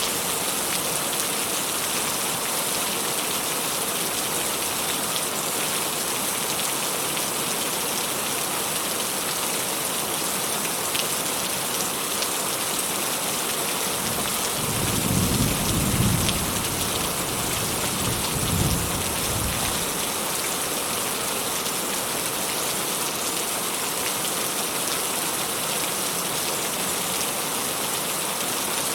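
Steady rain falling, with a low rumble of distant thunder about halfway through that swells, peaks twice and fades over a few seconds.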